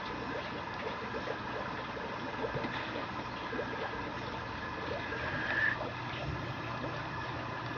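Steady background hiss and hum, with light scratching and rustling as a puppy moves about on artificial turf and a cloth among soft toys. A short rising squeak a little past halfway.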